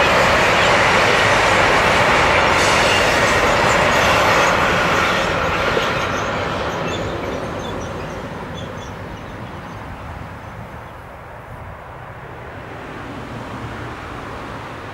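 Freight train's covered wagons rolling past on steel rails, wheels rumbling and clattering; the noise fades away from about a third of the way in as the last wagon draws off, leaving only a faint background.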